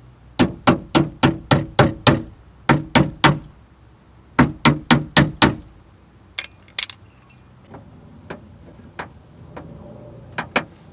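Three quick runs of sharp metallic knocks, about four a second, as parts of a car door are struck or worked with a tool. They are followed by a brief high metallic jingle and a few lighter clicks.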